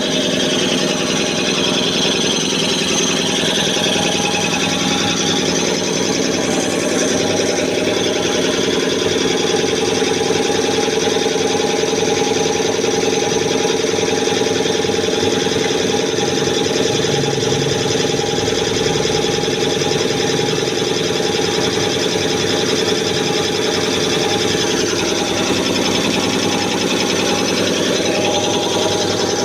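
High-pressure six-cylinder piston air compressor running steadily, with a fast, even mechanical clatter from its pistons.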